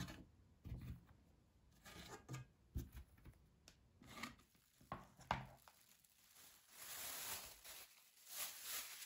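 Soft thuds of balls of dough being set down one after another on a floured tray, then the crinkling rustle of a thin plastic bag being pulled over them in the last few seconds.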